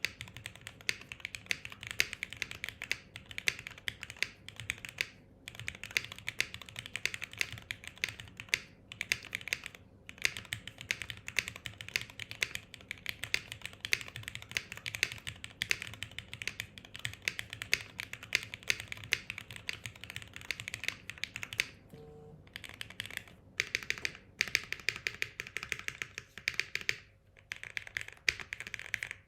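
Fast, continuous typing on a mechanical keyboard built without case foam, a rapid patter of key clicks with a few brief pauses.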